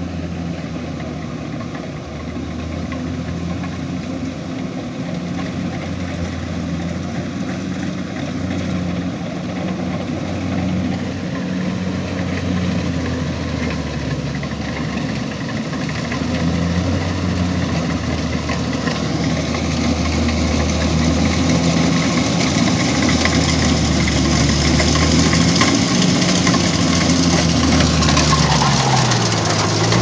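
Rice combine harvester's engine running steadily, growing louder as the machine comes closer. Near the end the engine's pitch dips briefly and comes back up.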